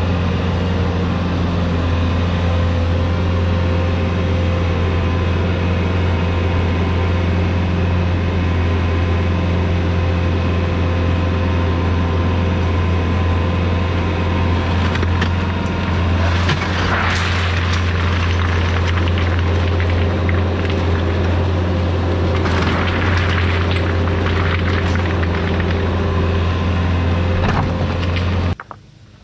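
A compact loader's engine runs steadily at a constant hum. Two stretches of rough clattering, about halfway through and again a few seconds later, fit the wire basket of river stones being tipped and the stones tumbling out. The engine sound cuts off abruptly just before the end.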